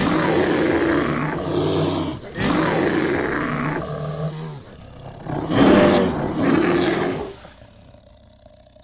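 Stadium crowd cheering in three surges that fade out near the end.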